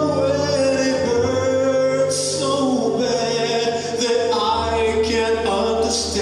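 A man singing long, held notes of a gospel song over instrumental backing with a bass line. The held pitch changes about four seconds in.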